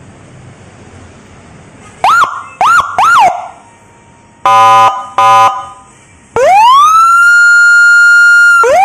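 Phantom YL-16 100 W 12 V electronic siren speaker cycling through its tones. About two seconds in come three quick rising chirps, then two short buzzy horn blasts, then a wail that rises and holds one steady tone before starting to rise again near the end.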